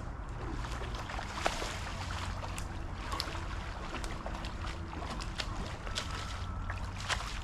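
Flowing river water, with a steady low rumble under many small, irregular splashes and ticks.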